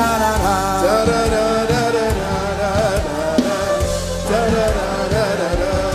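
A voice chanting wordless 'da da da' syllables in a gliding melody over sustained instrumental backing music.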